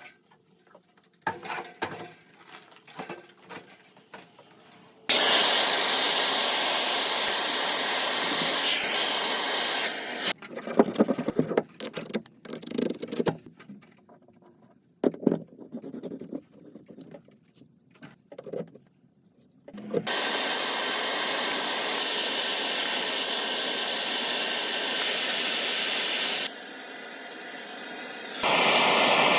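Work sounds from a water heater replacement. Scattered clinks and knocks of tools and parts being handled alternate with two long runs of a loud, steady whirring or rushing noise that starts and stops abruptly, as from a power tool.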